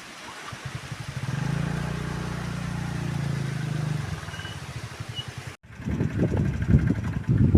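A vehicle engine running steadily, then fading about four seconds in. After a sudden cut near the end, irregular low rumbling.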